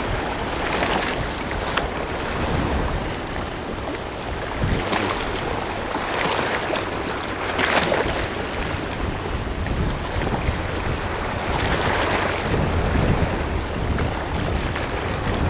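Sea waves washing against a rocky shore, swelling and ebbing every few seconds, with wind rumbling on the microphone.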